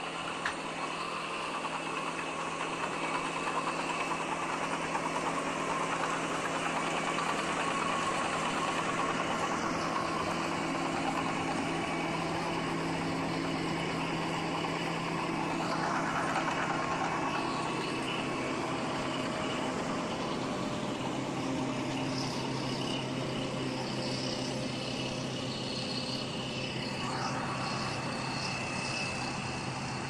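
Heavy diesel engines of crawler bulldozers and large tractors running with a steady drone. The engine note drops lower about halfway through.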